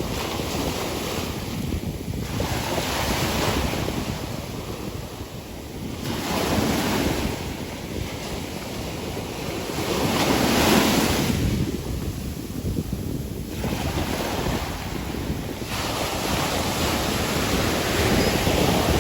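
Ocean waves breaking on a beach, the surf swelling and falling back every few seconds, with wind buffeting the microphone.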